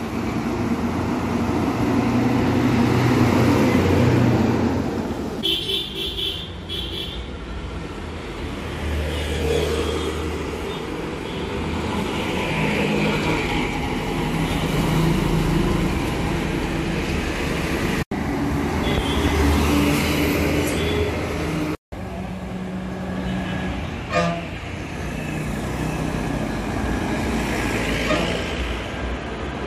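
Road traffic of buses, an auto-rickshaw and motorcycles passing with their engines running, loudest in the first four seconds. A vehicle horn sounds in a few short blasts about five to seven seconds in. The sound cuts out briefly twice, near the middle.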